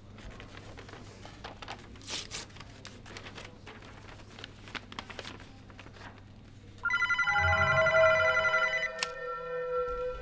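Mobile phone ringing with an electronic trilling ring. It starts about seven seconds in, loud for about two seconds and then softer. Before it there is only faint rustling and clicking as a padded paper envelope is handled and opened.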